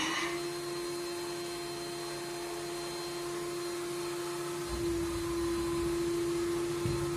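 A steady hum that glides up in pitch as it starts and then holds one note. A low rumble joins it about four and a half seconds in.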